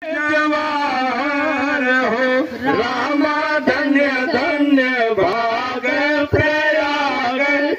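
A male voice singing the drawn-out, wavering opening notes of a Bhojpuri sohar (a birth song), amplified through a microphone. The notes are long and slide up and down, with only brief breaths between them.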